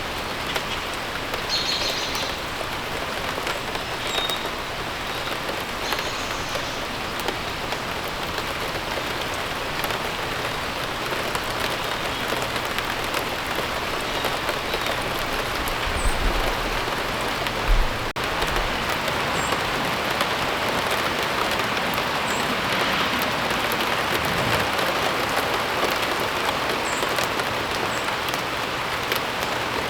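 Steady rain falling and pattering, with a few short, high bird chirps. A brief low thump comes about two-thirds of the way through.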